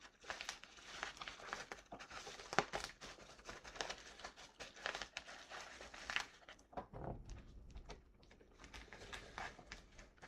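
Packaging crinkling and rustling in irregular bursts of small crackles as a toy is unwrapped and handled.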